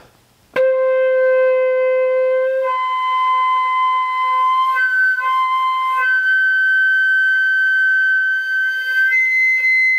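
Bamboo pífano (Brazilian transverse fife) holding its lowest C with all holes closed, then overblown on the same fingering: it jumps an octave to C nearly three seconds in, briefly touches G, settles on G (a fifth higher) about six seconds in, and leaps to the C of the third octave near the end. The pitch changes come from the embouchure and air speed alone, an overtone exercise for octave control.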